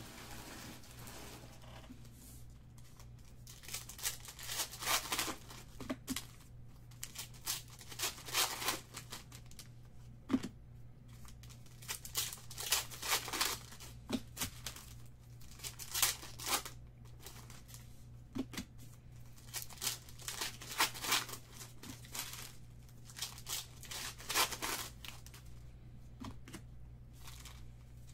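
Foil wrappers of football card packs being torn open and crinkled by hand, in repeated bursts of rustling with short quiet gaps, over a steady low hum.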